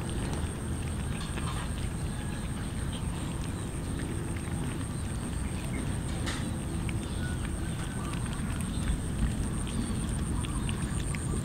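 A group of cats eating rice from metal trays: scattered small clicks and chewing ticks over a steady low rumble, with a faint steady high-pitched whine.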